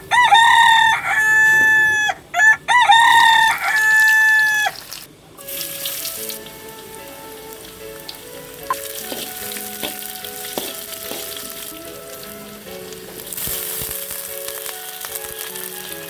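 A rooster crows twice, loud, over the first five seconds. Then food sizzles steadily in hot oil, with soft music under it.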